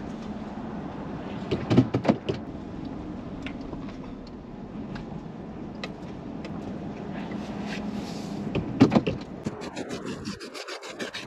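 A loaded pickup truck heard from its cab, driving slowly over rough scrapyard ground with a steady hum. Clusters of clunks and rattles come about two seconds in and again about nine seconds in. In the last second or two there is a quick run of clicks and scraping as the roll-up tonneau cover over the bed is rolled back.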